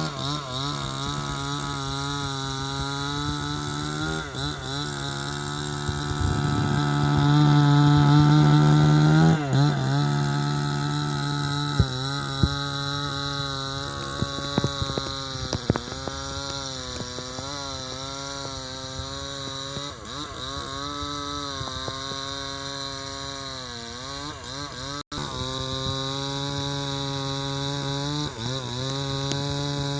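Two-stroke chainsaw cutting into a mahogany trunk, its engine pitch repeatedly sagging under the load of the cut and picking up again.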